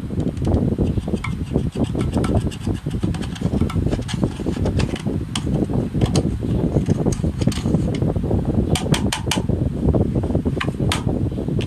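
Slime being squished and worked: a steady low rumble with scattered sticky clicks and pops, twice in quick runs of about four.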